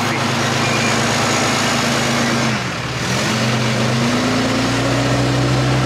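Tow truck engine running at raised speed to drive its winch, which is pulling a submerged pickup out of the water. The engine note sags about two and a half seconds in, then picks up again a little higher.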